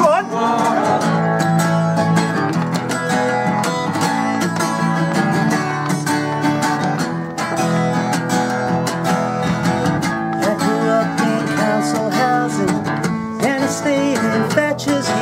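Acoustic guitar strumming steady chords in an instrumental break of a live pop-folk song, between sung lines.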